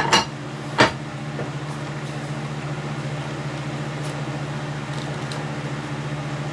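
A steady mechanical hum from a machine running in the workshop, with three sharp knocks in the first second as things are handled on the bench.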